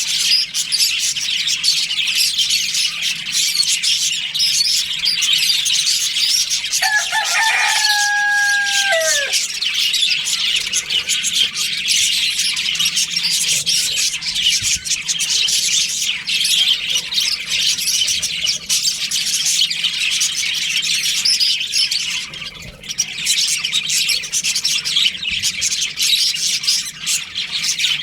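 A flock of budgerigars chattering and chirping continuously. About seven seconds in, a rooster crows once, a call of roughly two seconds that drops in pitch at the end.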